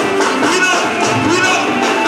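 Loud dance music with singing, playing without a break.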